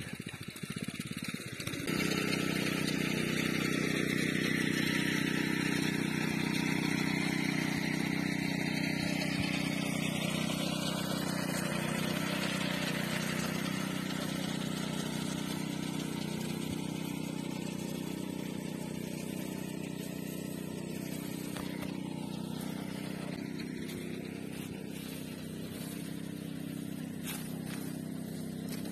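Small engine of a rice reaper running steadily. It sets in about two seconds in and slowly grows fainter.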